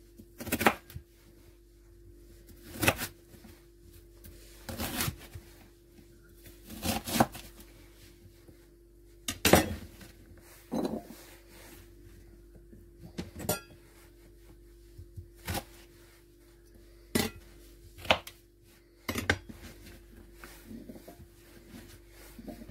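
Kitchen knife cutting carrots into strips, with sharp knocks and clinks against the cutting board every second or two.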